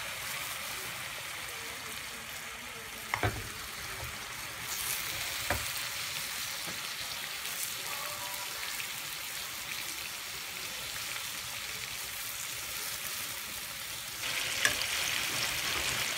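Marinated chicken pieces frying in melted butter in a pan, a steady sizzle throughout. There are two sharp knocks a few seconds in, and the sizzle grows louder near the end.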